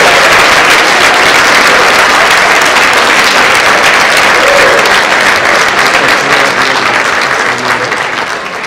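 A large audience applauding, dense steady clapping that thins and dies away near the end.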